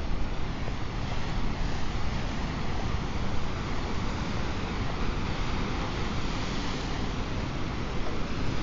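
Wind buffeting the microphone over a steady wash of ocean surf.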